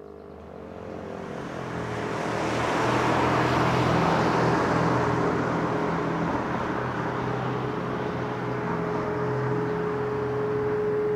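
A rush of noise with a low hum swells over the first few seconds and holds. From about halfway, a distant motor siren in a neighbouring village sounds one steady tone that grows louder near the end.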